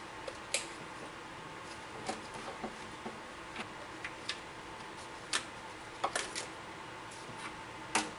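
Irregular sharp clicks and knocks, a dozen or so scattered unevenly, over a steady background hiss and faint hum.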